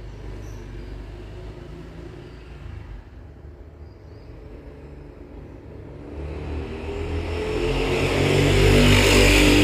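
A motor vehicle engine passing close by: a low rumble that grows steadily louder from about six seconds in, peaking near the end.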